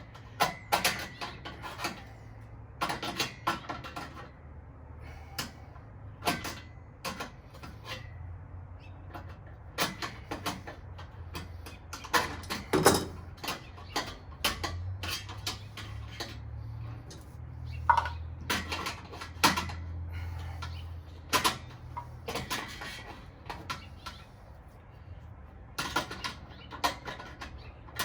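Irregular metallic clicks and clanks of nuts and bolts being tightened by hand tools on a patio heater's metal wheel base, with a low steady hum underneath.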